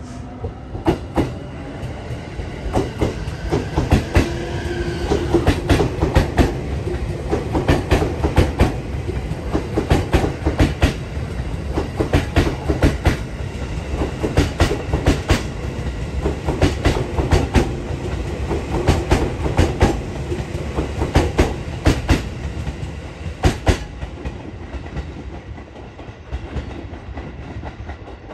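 JR 255-series electric multiple unit rolling by, its wheels clattering over rail joints and points in a long run of clicks, with a gliding motor whine in the first few seconds. The clatter dies away over the last few seconds as the train moves off.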